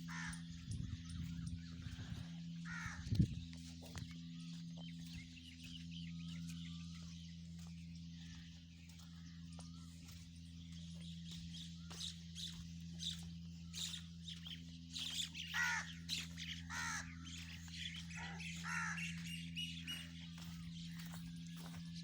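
Birds calling outdoors, with a cluster of short sweeping calls in the second half, over a steady low hum. There is one brief knock about three seconds in.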